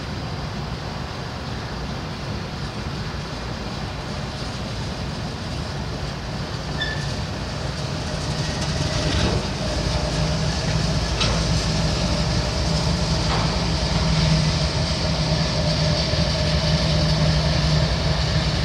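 Freight train of autorack and box cars rolling past, a steady rumble of steel wheels on rail with a few sharp knocks. It grows louder about halfway through, where a low steady drone joins in.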